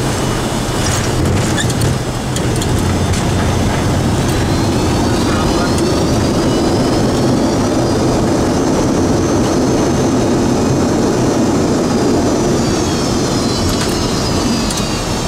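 Boeing 737-200 cockpit during the landing rollout: loud steady roar of the runway roll and the Pratt & Whitney JT8D-17A engines, with a few rattling clicks in the first couple of seconds. The engines' whine rises a few seconds in, holds, and falls away again near the end as the thrust levers are brought back.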